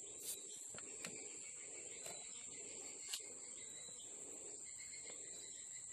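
Steady high-pitched drone of insects, with three faint short clicks in the first few seconds.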